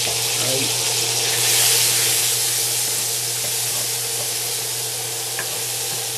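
Pork pieces sizzling in a hot cast-iron skillet with hot chili sauce just added; the sizzle swells about one and a half seconds in. In the second half a spatula stirs the meat in the pan, with a few light taps.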